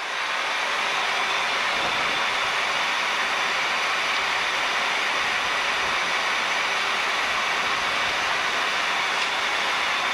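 Steady rush of airflow and engine noise heard inside a Boeing 737 cockpit on final approach, with landing flaps set.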